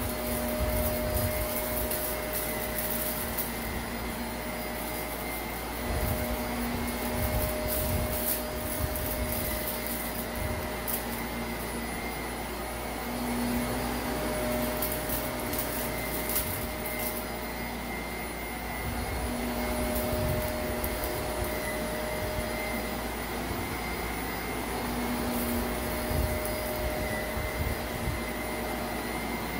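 Shark Navigator upright vacuum cleaner running as it is pushed back and forth over thick carpet, a tone in its motor sound coming and going with the strokes. Light crackles of grit are being sucked up out of the pile.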